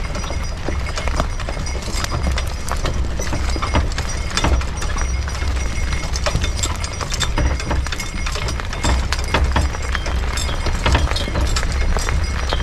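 A team of two harnessed horses stepping: irregular hoof clops and wooden, rattling clacks from the rig over a steady low rumble.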